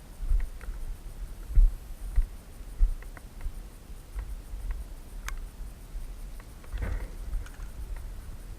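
Irregular low thumps with scattered small clicks and rustles, typical of someone moving about with the recording gear, and one sharper click about five seconds in.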